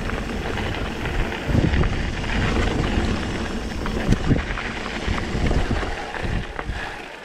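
Wind rushing over the microphone with a low rumble and scattered knocks and rattles, as from a mountain bike ridden along a forest trail; it eases off near the end.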